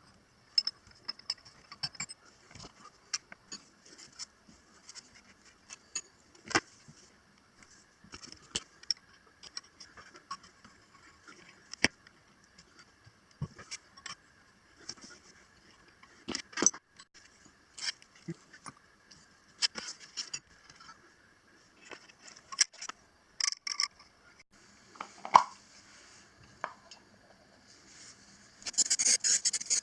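Loose metal parts of a disassembled machine vise clinking and knocking as they are handled and set down, irregular sharp knocks throughout, with a short rasping scrape near the end.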